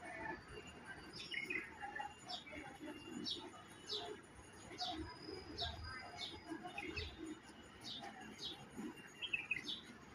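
Garden songbirds chirping: a steady series of short, high chirps, roughly one to two a second, over softer, lower bird notes.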